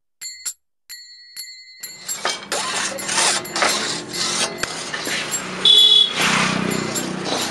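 Two bell-like metallic rings, the second held about a second, then a hand saw cutting wood in quick back-and-forth strokes, about three a second. A low steady hum runs behind the sawing, and a brief high squeal comes about six seconds in, the loudest moment.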